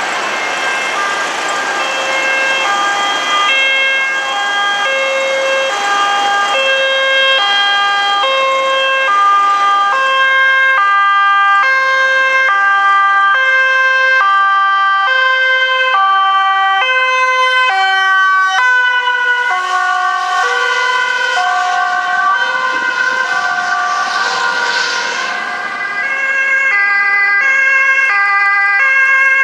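Dutch ambulances' two-tone sirens, alternating between a high and a low note about once a second, with more than one siren overlapping. About two-thirds of the way through the pitch dips slightly, as of an ambulance passing.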